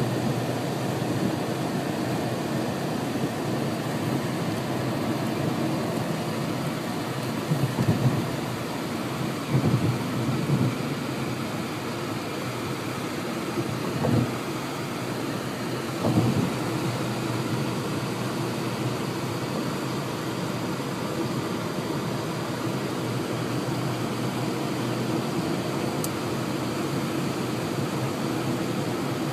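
Steady road and engine noise heard from inside a moving car, broken by a few low thumps between about eight and sixteen seconds in.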